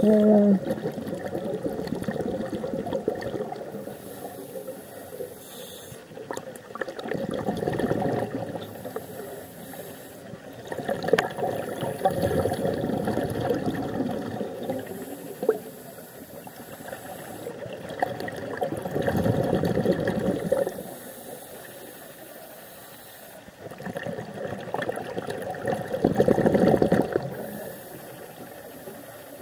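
A scuba diver's breathing heard underwater. About every five to seven seconds there is a burst of bubbling rush from an exhaled breath, five in all, with quieter hiss between.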